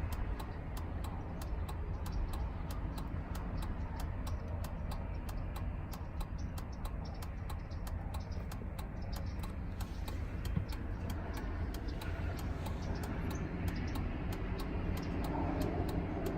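Replacement turn-signal flasher module in a 2003 Chevrolet Suburban clicking at an even pace as the blinker runs, over a steady low hum. The regular, unbroken rhythm shows the new module working, with none of the skipping of the old intermittent one.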